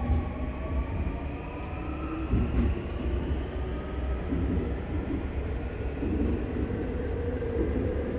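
Seoul Metro Line 9 train heard from inside a passenger car as it pulls away and accelerates: a low rumble from the wheels and running gear, with the whine of the Hyundai Rotem IGBT-VVVF inverter drive rising in pitch over the first few seconds. A few faint clicks from the running gear.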